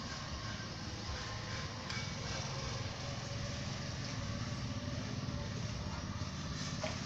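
A steady low engine hum in the background, growing a little stronger about two seconds in.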